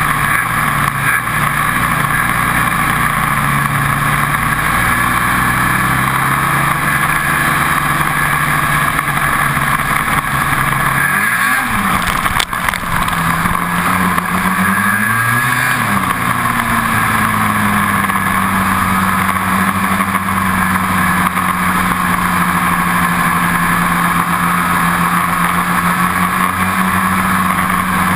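Ski-Doo 800 two-stroke snowmobile engine running under throttle on a ride. Its pitch drops and climbs again about eleven seconds in, rises and falls briefly a few seconds later, then holds steady at speed.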